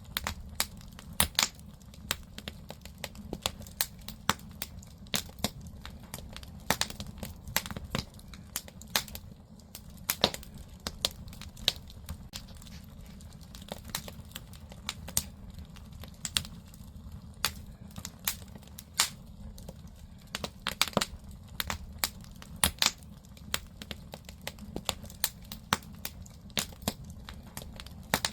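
Firewood burning in a traditional Korean agungi firebox: a dense run of irregular sharp crackles and pops over a steady low rumble of the fire.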